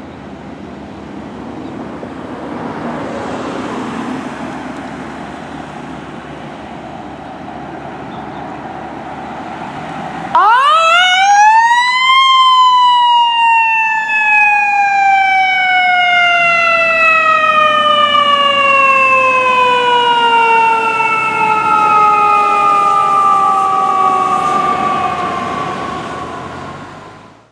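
Road and vehicle noise, then about ten seconds in an emergency vehicle's mechanical siren starts: it winds up sharply in pitch for a couple of seconds, then coasts slowly down in one long falling wail.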